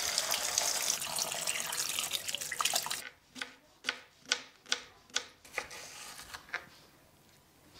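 Water running from a tap for about three seconds. It stops suddenly and is followed by a knife slicing a cucumber on a plastic cutting board: about seven sharp knocks, a little over two a second.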